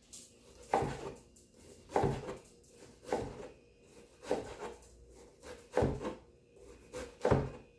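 Kitchen knife chopping onion on a plastic cutting board: separate knocks of the blade striking the board, about one or two a second, unevenly spaced.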